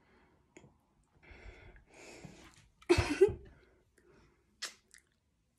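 A woman's breathy vocal sounds: soft breaths, then two sharp, loud bursts close together about three seconds in, with a short click near the end.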